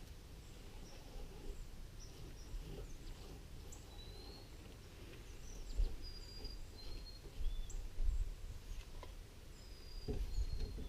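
Small birds chirping in the background: short, thin, high whistled notes, some sliding down in pitch, scattered through. They sit over a low rumbling noise with a few soft thumps, the loudest about six, eight and ten seconds in.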